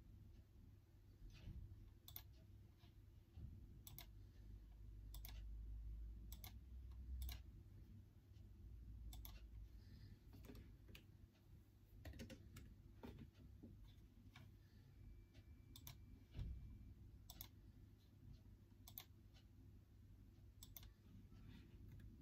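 Faint, unhurried typing on an Apple MacBook laptop's built-in keyboard: separate key clicks spaced irregularly, about one a second, over a low steady room hum.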